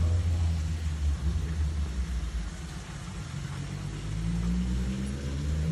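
A motor vehicle's engine running steadily with a low hum, rising a little in pitch about four seconds in.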